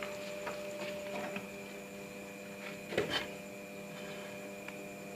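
Steady electrical hum of a running egg incubator, with a few faint clicks and one brief rustle about three seconds in.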